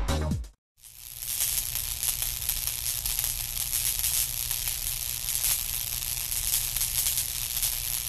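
Electronic dance music cuts off within the first half-second. After a moment of silence, a steady electric crackling and buzzing starts, a crackling hiss over a low hum.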